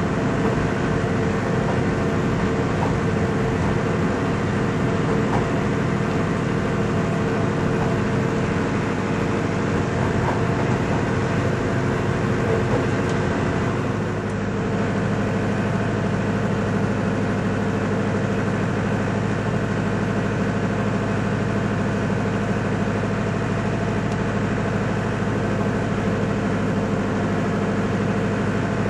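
Steady rumble and hum of a moving train heard from on board. About halfway through the sound shifts at an edit to a more even, lower hum.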